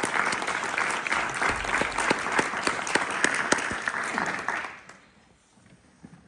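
Audience applauding, a dense patter of hand claps that dies away about three-quarters of the way through, leaving the hall quiet with a faint knock or two.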